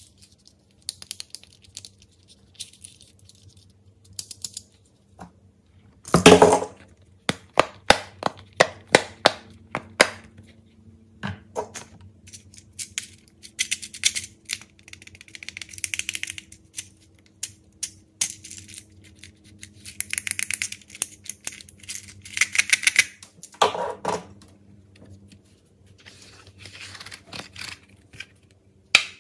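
Small plastic fidget toys handled close up: irregular clicks and rattles from a toy car and a fidget cube's buttons and switches, with short scraping bursts. A loud thump comes about six seconds in and another near the end, as toys are knocked or set down.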